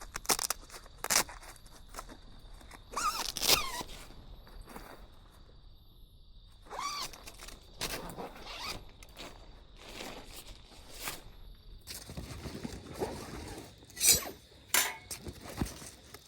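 A zipper being pulled in several short strokes, mixed with clicks and scrapes of gear being handled.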